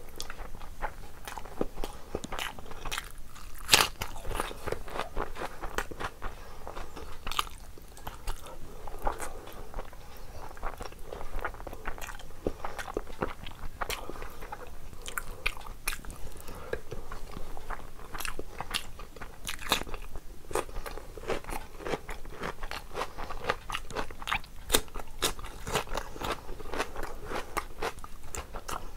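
Close-miked eating by hand: chewing and lip smacking with many crisp crunches, and fingers mixing rice and curry on a plate. The loudest crunch comes about four seconds in.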